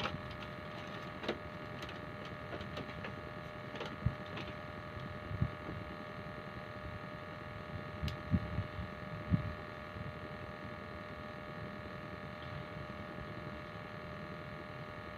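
A steady mechanical hum made of several held tones, with a few light knocks and clicks scattered through it, most of them clustered about eight to nine seconds in.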